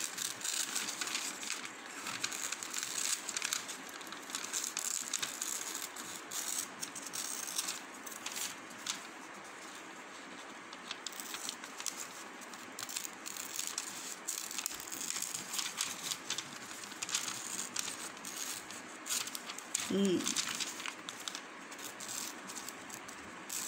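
Scissors snipping through a glossy magazine page, with many short clicks of the blades and the paper crinkling and rustling as it is handled and turned.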